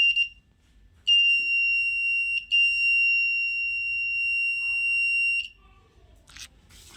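Buzzer of a home-made fire alarm, run by an NTC thermistor heat sensor and three 1.5-volt cells, sounding a steady high-pitched tone: a short beep, then a long tone of about four seconds with a brief break near its start. It sounds because the heat sensor has triggered the alarm.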